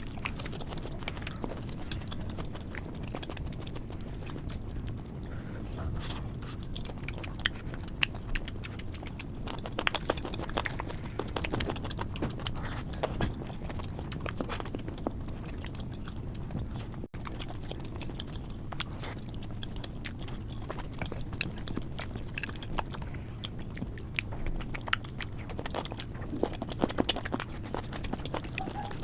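A person chewing and eating omelet and curry close to the microphone, with many small irregular mouth clicks and smacks, busier in a few stretches.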